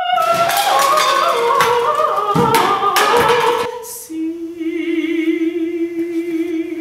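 Singing: several wavering sung pitches over sharp knocks for the first few seconds, then a single voice holding one long note with a wide vibrato from about four seconds in.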